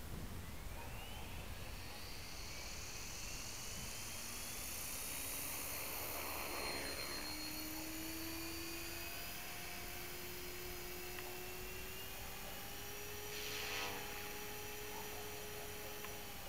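MSH Mini Protos electric RC helicopter, its brushless motor on 4S, spooling up with a rising whine over the first few seconds, then running steadily as it lifts off and flies. Two louder whooshing passes of the rotor blades come about seven and about fourteen seconds in.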